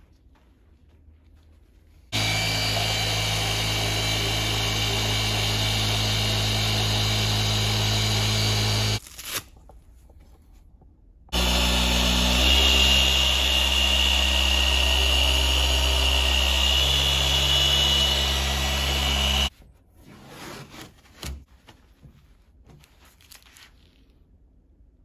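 An electric polishing machine runs on car paintwork in two steady runs of about seven and eight seconds, each starting and stopping abruptly. Its hum shifts in pitch partway through the second run.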